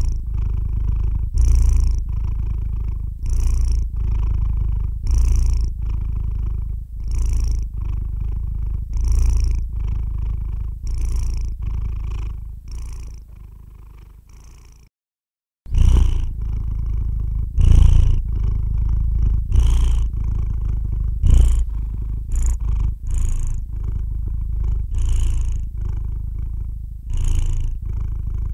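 A sleeping calico cat purring close to the microphone: a steady low rumble that swells with each breath, about one breath every two seconds. It fades and drops out for about a second halfway through, then resumes.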